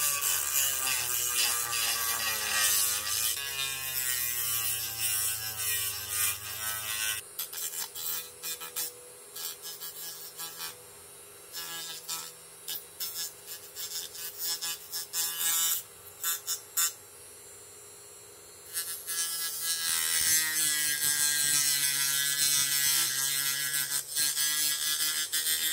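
Dremel rotary tool with a sanding drum grinding into the thick plastic of a model truck's box side, shaving it thin from the inside. A high motor whine with rasping is heard for about the first seven seconds, then only short intermittent touches, then steady grinding again from about nineteen seconds.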